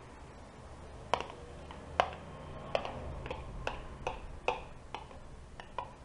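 Irregular sharp clinks, about one every half second, of a spoon knocking against the rim of a bowl as diced ham, cheese and tomato filling is tipped out onto pie batter.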